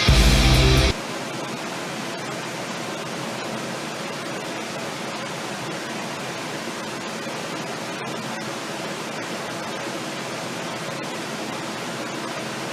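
Heavy metal music with electric guitar, which stops abruptly about a second in, followed by a steady, even hiss.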